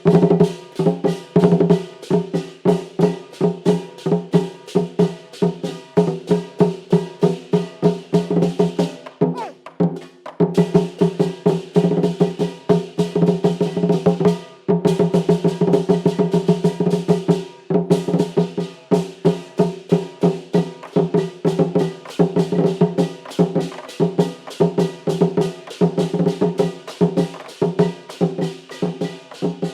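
Percussion ensemble playing a fast, driving rhythm of pitched drum and woodblock strokes, with short breaks about nine, fourteen and eighteen seconds in.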